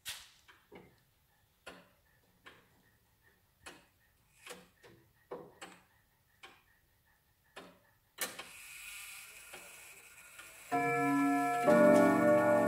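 DUFA pendulum clock ticking with sharp clicks about once a second as its minute hand is turned up to the hour. About eight seconds in, a louder click sets the striking train whirring, and near the end the chime starts, several ringing notes sounding together.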